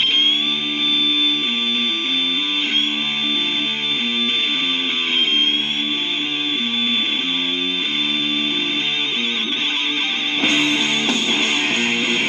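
Instrumental passage of a rock recording: guitars playing changing chords under one long, high held note that wavers near the end, with no vocals.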